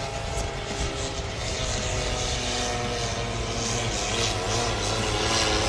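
Diesel engine of a pulling tractor running flat out under load as it drags the weight-transfer sled, a steady heavy engine note that grows gradually louder as it approaches.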